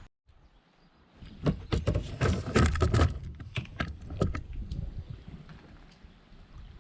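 Irregular knocking and clattering of a paddle and gear against a kayak hull, busiest about two to three seconds in, then trailing off to a few softer knocks.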